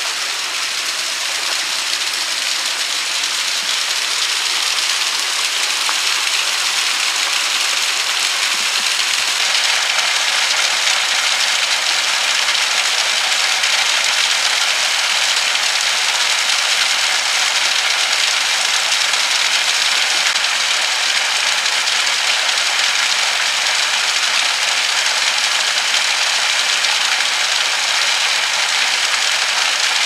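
Small waterfall spilling over a rock ledge into a stream: a steady rush and splash of falling water, growing louder over the first several seconds, then holding even.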